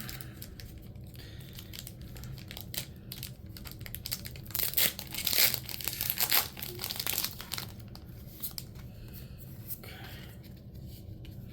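A foil trading-card booster pack being torn open, with crinkling of the wrapper. The tearing is loudest in a run of sharp rips about halfway through, with softer crinkles before and after.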